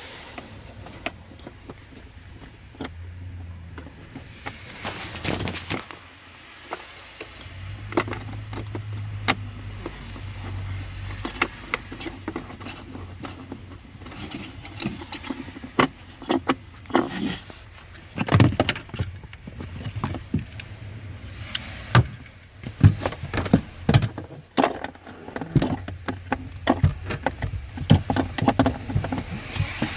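Scattered clicks, taps and small metallic knocks of hands and a tool fitting screws into a blower motor resistor under a truck's dashboard, coming more often in the second half, with a low rumble at times.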